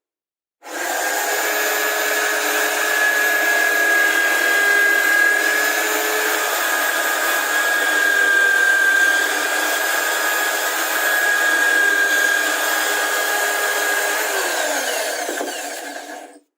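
Electric power tool running steadily with a high motor whine, starting under a second in and cutting off abruptly near the end.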